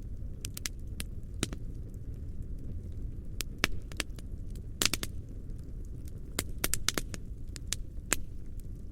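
Medium campfire burning: a steady low rush of flames under irregular sharp crackles and snaps, with the loudest pops near the middle.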